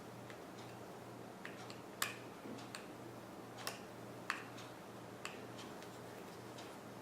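Scattered small clicks and taps of a precision screwdriver and tiny screws against the iPhone 3G's parts as the screws are put back in, the sharpest about two seconds in.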